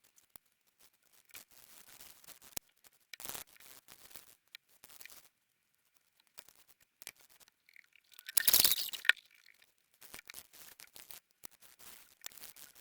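Small plastic mobile-phone parts being handled, with scattered light clicks and rustles, and a louder scratchy rustle lasting under a second about eight seconds in.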